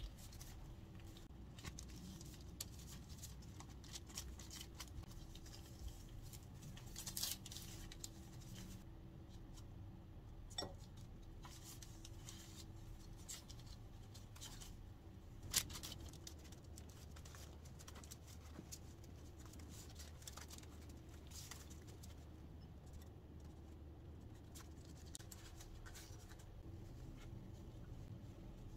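Faint rustling of spring roll wrappers and parchment paper being handled and rolled, with scattered soft clicks and taps, one sharper knock about halfway through.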